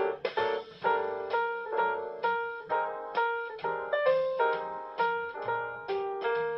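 Instrumental background music: a melody of short plucked or struck notes, several a second, each fading quickly.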